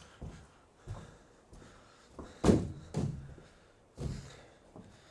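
Salvaged wooden boards being dropped and set down as a floor inside a steel shipping container: a handful of separate hollow thuds, the loudest about halfway through, with another close after it and one near the end.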